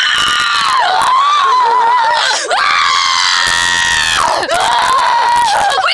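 Loud, high-pitched screaming, one long drawn-out scream after another with brief breaks about a second, two and a half and four and a half seconds in. It is an exaggerated scream of frustration.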